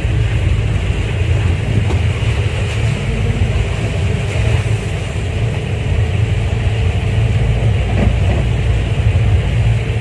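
Steady low rumble of a multicab shuttle's engine and road noise, heard from inside the open-sided cabin while it drives along.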